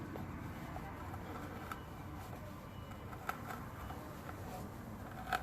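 A sharp blade slicing around a thick silicone turbo hose: faint scraping and rustling, with a few small clicks.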